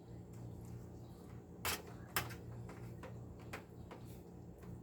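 Faint kitchen handling noises: a few light clicks and taps, like utensils against a baking pan, over a low steady hum.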